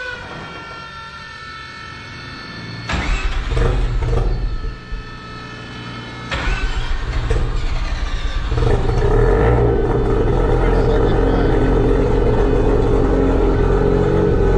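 1994 Mazda RX-7's turbocharged 13B-REW rotary engine hot-starting just after a drive: a steady whine as it cranks for about three seconds, then it catches, stumbles around five seconds in, catches again and settles into a loud steady idle. A hot rotary is hard to start because the hot housings expand and lose compression.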